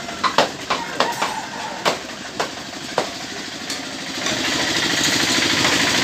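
Several sharp knocks in the first three seconds. Then, about four seconds in, an auto-rickshaw engine starts running very close by, getting louder and staying steady with a fast even beat.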